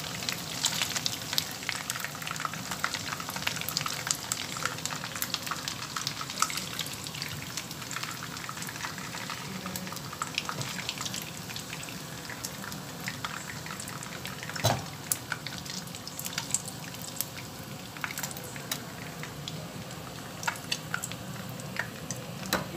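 Shrimp frying in hot oil in a wok: a steady sizzle full of small pops and crackles, with a single knock about fifteen seconds in.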